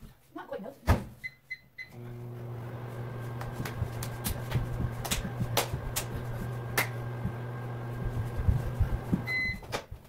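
Over-the-range microwave oven: the door shuts with a knock, the keypad beeps, and the oven runs with a steady low hum for about seven seconds, with a few sharp clicks over it. The hum stops near the end and the oven beeps once.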